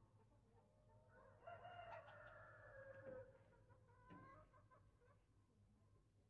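A rooster crowing faintly: one long call starting about a second and a half in, followed by a few shorter, fainter calls.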